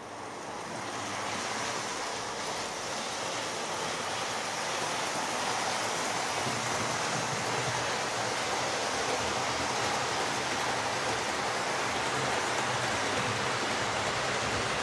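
Model Class 43 HST trains running on the layout's track: a steady rushing hiss of wheels and motors on the rails, building over the first couple of seconds and then holding even.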